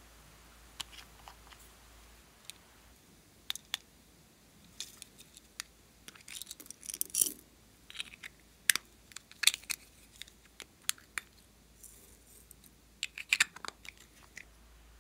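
Hands handling small plastic cosmetic containers: a run of sharp clicks, snaps and short crackles as a case is prised open. The sounds are busiest in the middle and come again as a quick cluster near the end.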